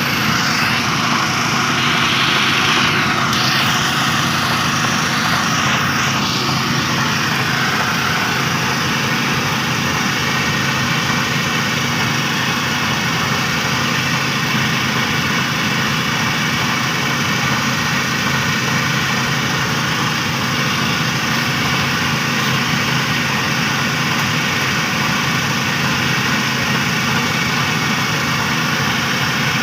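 Engine-driven rice threshing machine running steadily, a continuous machine drone with a hiss of threshing over it, a little busier in the first few seconds.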